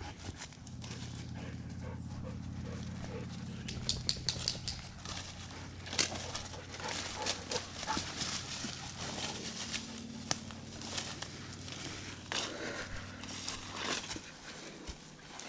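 A dog moving about in undergrowth, with irregular crackles and snaps of twigs and leaves from about four seconds in, over a steady low hum.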